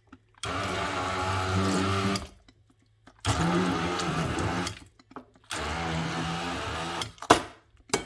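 Electric blender run in three short pulses of about a second and a half each, its motor pitch wavering under load as it purées boiled dried figs with garlic and thyme into a jam-like paste. A sharp click comes near the end.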